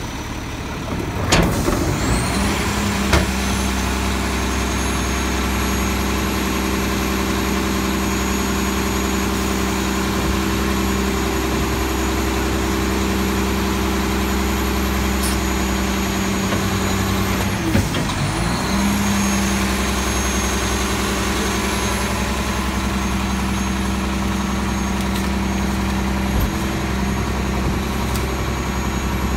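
Bridgeport rear-loader garbage truck's engine held at raised revs to drive the hydraulic packer, with a steady drone and a high whine, as the packer panel sweeps and compacts yard waste from the hopper. A sharp clunk about a second in, then the whine rises as the cycle starts; about 18 seconds in it drops out briefly and rises again as the packer changes stroke.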